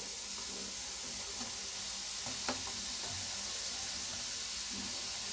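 Besan-coated peanuts deep-frying in hot oil in a wok: a steady sizzle, with a faint click about two and a half seconds in.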